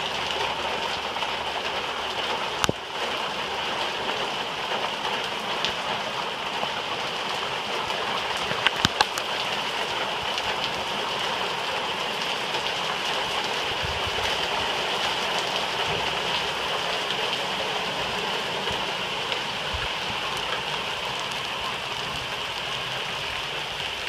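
Steady heavy rain from a thunderstorm, falling and splashing on surfaces. A sharp click sounds about three seconds in, and a quick run of three clicks comes near the middle.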